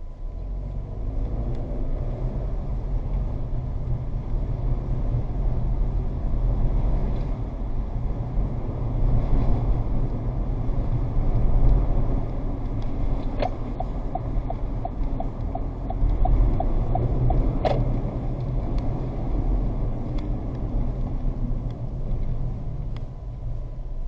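A car driving, with steady road and engine rumble. Past the middle comes a run of light ticks at about three a second, between two sharper clicks.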